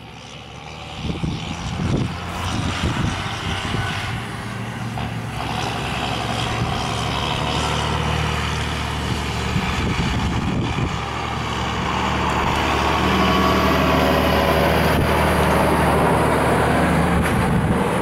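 John Deere tractor engine running steadily as it pulls a trailer of grain across stubble, growing louder as it approaches and passes close by. A few knocks sound in the first few seconds.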